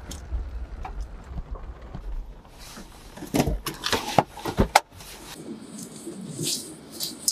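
Low rumble of a car cabin while driving. About three seconds in comes a quick run of sharp clicks and clunks as the car is stopped and its door is opened. After about five seconds the rumble is gone.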